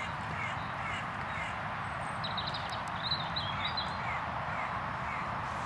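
Wild birds calling: a run of short chirps, with a cluster of higher calls about two to four seconds in, over a steady outdoor hiss.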